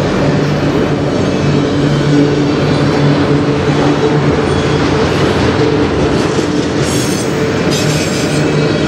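Freight cars (autoracks and a covered hopper) rolling past close by: a steady, loud rumble of steel wheels on rail with a low hum, and two short bursts of high-pitched noise near the end.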